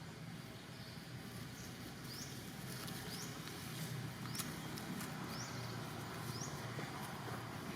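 A short, high, rising chirp call repeated about once a second, with a few sharp clicks in the middle and a steady low rumble underneath.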